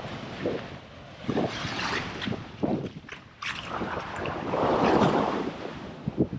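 Wind buffeting the microphone in uneven gusts over surf washing onto the beach. The loudest swell comes about five seconds in.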